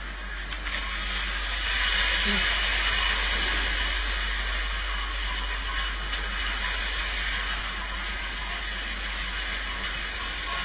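A phone recording played back: a steady hiss that grows louder about two seconds in, with a few faint ticks, the falling-marble tapping she hears in her flat's walls and ceiling.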